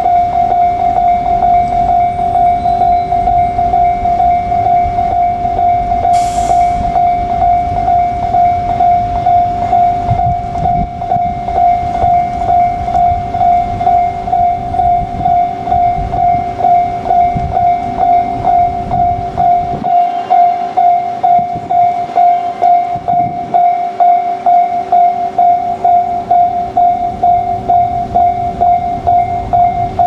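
Japanese railway level-crossing warning alarm ringing, one high tone chiming over and over in a rapid steady beat, sounding as the crossing is closed for an approaching train. A low rumble runs underneath, with a short hiss about six seconds in.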